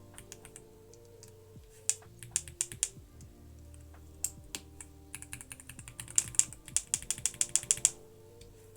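Keys on a mechanical keyboard with ball-bearing roller linear switches being pressed: a few separate keystrokes about two seconds in, then a quick run of keystrokes near the end. Background music plays throughout.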